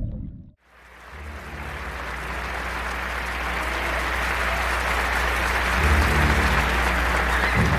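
Audience applause at a live concert fades in after a brief drop about half a second in, growing steadily louder, over a low steady hum.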